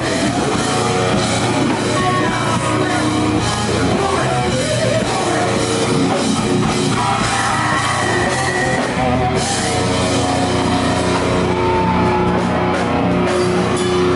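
Live rock band playing loud, heavy rock: electric guitar and drum kit, with a singer's vocals through the microphone.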